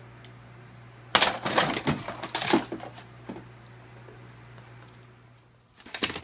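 Small household objects, among them a plastic pill bottle, clattering and tumbling on a cluttered shelf as a kitten knocks them over while climbing down: a burst of knocks and rattles about a second in that lasts around a second and a half, then another short clatter near the end.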